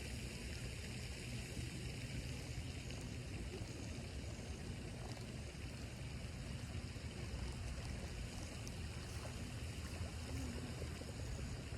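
Steady outdoor background noise with a low, fluctuating rumble and an even rushing hiss, with no distinct events.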